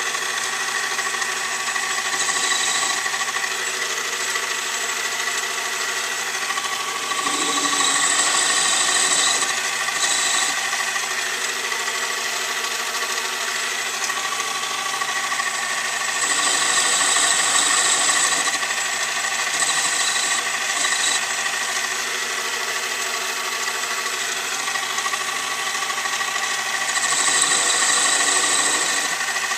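Metal lathe running steadily with a motor whine while a tool bit turns a taper on a piece of drill rod tool steel. A higher hiss comes and goes about five times, for a second to three seconds each time, as cuts are taken.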